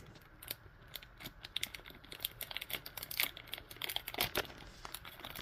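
A Dragon Ball Z trading card booster pack's wrapper crinkling as it is torn open, with many quick, irregular crackles and ticks.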